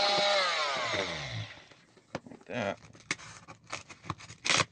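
Rockwell Sonicrafter F30 oscillating multi-tool switched off, its motor whine falling in pitch and dying away over about a second and a half. Then scattered clicks and scrapes as loose splintered wood pieces are handled, with a louder scrape near the end.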